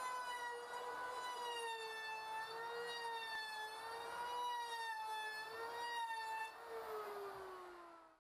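Handheld electric router running as it mills a groove along a wooden batten: a steady whine that wavers slightly in pitch, then drops in pitch near the end as the motor slows.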